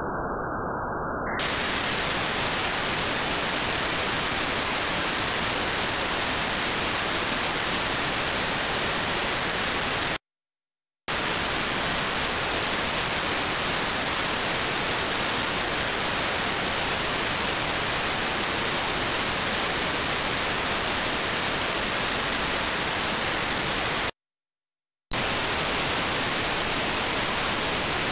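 Steady static hiss from an RTL-SDR receiver's FM-demodulated audio, tuned on the FM broadcast band, with no station sound coming through. The hiss is muffled for about the first second, then turns bright and full as the audio filter widens. It cuts out completely twice, each time for about a second.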